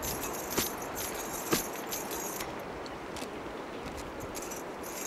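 A long wooden pestle pounds grain in a stone mortar set in the ground: two sharp knocks about a second apart. After that come only faint small clicks and rustles as the grain is worked by hand.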